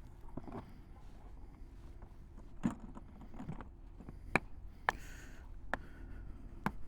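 Things being handled and packed into motorcycle luggage: about five sharp clicks and knocks, spread over the second half, above a low steady rumble.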